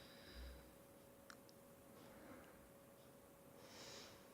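Near silence: room tone with a faint steady hum and one faint click about a second in.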